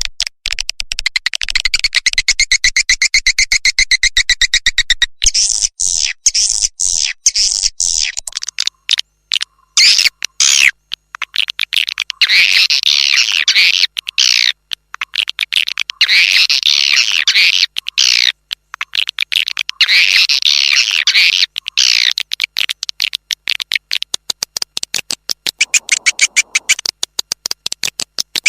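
Swiftlet lure call track: rapid trains of high chirps and clicks. It starts as a continuous run, and from about halfway through it comes in dense twittering bursts of about two seconds with short gaps.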